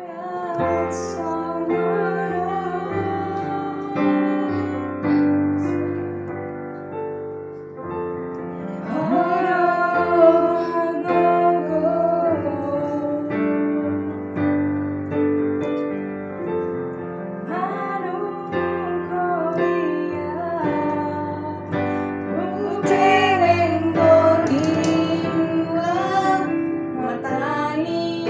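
A woman singing a song to digital piano accompaniment; the piano comes in with held chords at the start and the voice carries the melody above them.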